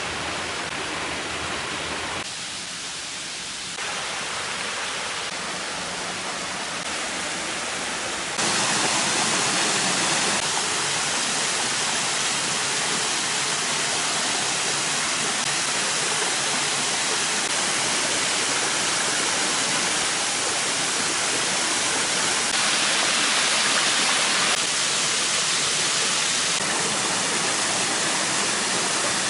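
Waterfall pouring: a steady rush of falling water whose loudness jumps up or down abruptly several times, growing fuller and louder from about eight seconds in.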